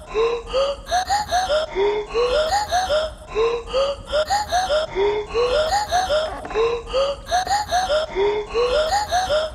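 Background music: a looped phrase of short, rising, voice-like notes that repeats about every second and a half, over a steady low rumble.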